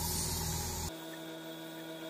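Pneumatic orbital sander running against the steel floor pan with a steady rumble and hiss, cut off abruptly about a second in and followed by steady background music.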